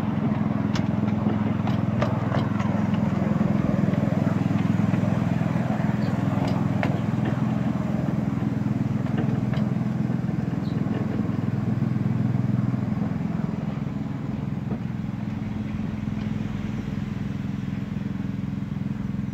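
Petrol engine of a 7¼-inch gauge petrol-hydraulic miniature locomotive running steadily, heard from the train behind it, with scattered sharp clicks over the first half. The engine eases slightly quieter in the second half.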